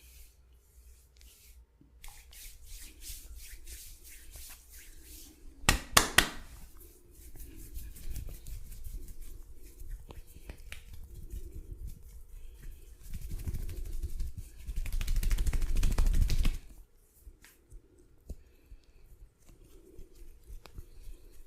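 Hands working skin during a massage: a run of light taps, two or three loud, sharp slaps about six seconds in, and later a few seconds of fast, dense rubbing or slapping that stops suddenly.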